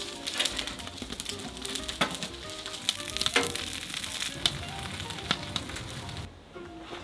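Food sizzling in a hot pan, with a few sharp clicks and knocks, like a utensil stirring. The sizzle cuts off about six seconds in.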